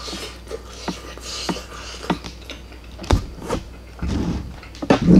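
Metal fork and knife clicking and knocking against a ceramic plate while eating, several sharp strikes, the loudest about three seconds in and right at the end, with soft chewing in between.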